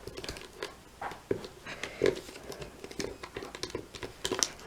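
Irregular plastic clicks and clatter from an animatronic singing fish toy's motor-driven mechanism as it moves.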